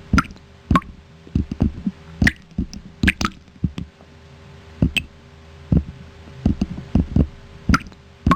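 Water-drop sounds made with the mouth: an irregular series of short pops, some a bright pitched plink, others duller.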